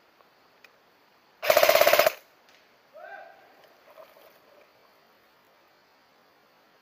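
Airsoft gun fired on full auto: one short burst of about ten rapid shots lasting under a second, about a second and a half in.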